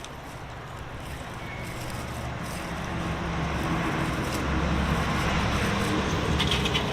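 A road vehicle's engine and tyres, a low rumble growing steadily louder as it approaches. A few sharp clicks near the end.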